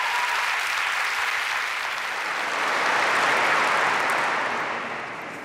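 Audience applauding steadily, swelling about halfway through and fading near the end.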